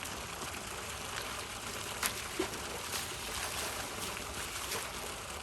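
Water running steadily during an elephant's bath, an even trickling rush, with a sharp click about two seconds in.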